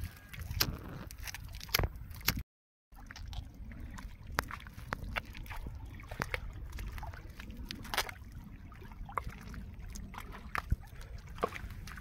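Bare feet squelching and sucking in soft, wet riverbank mud: a string of irregular wet clicks and slaps over a steady low rumble.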